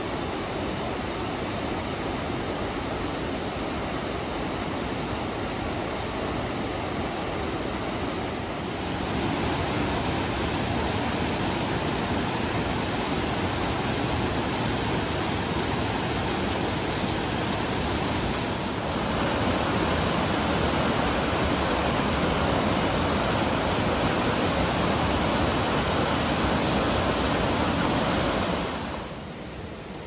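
Panther Creek, a fast mountain creek, rushing over rocks in a steady whitewater rush. It steps louder about nine seconds in and again near twenty seconds, then drops sharply to a quieter hiss just before the end.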